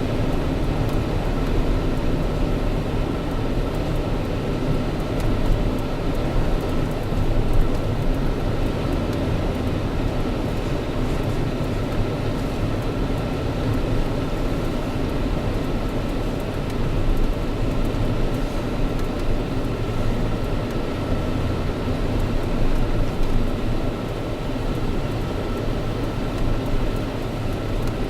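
Steady low rumble of a car's engine and tyres heard from inside the cabin, with a faint steady whine.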